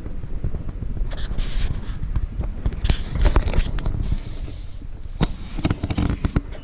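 A run of irregular cracks, clicks and knocks over a low rumble, busiest in the middle.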